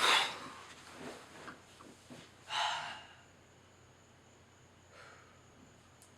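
A person breathing out heavily, like a tired sigh: a loud exhale at the start and another about two and a half seconds in, with fainter breaths after.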